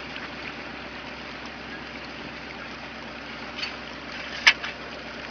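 Steady water noise with a low, even hum underneath, and one sharp knock about four and a half seconds in.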